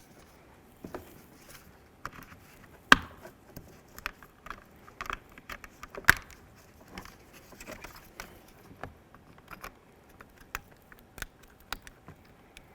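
Scattered light clicks and taps of car door trim pieces being handled and fitted back onto the door panel, with two sharper clicks about three and six seconds in.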